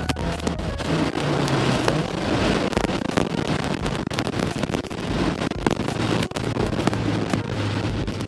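Supercharged 2007 Chevy Cobalt SS 2.0-litre four-cylinder engine pulling hard under full throttle, with heavy road and wind noise.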